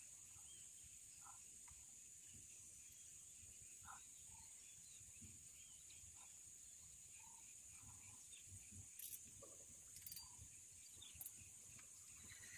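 Near silence, with a faint steady high-pitched insect drone and scattered faint bird chirps. A few soft clicks come about nine to eleven seconds in.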